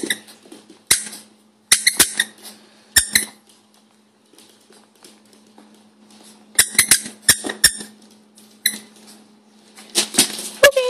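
Squeaky dog-toy ball squeaked in short clusters of sharp, high squeaks, about seven groups with gaps between them. The loudest group comes near the end.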